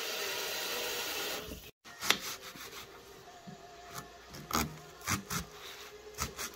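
Tap water running into a pot of raw chicken pieces for about a second and a half. Then a kitchen knife peels the dry skin off an onion on a cutting board, giving a string of irregular scrapes and crackling clicks.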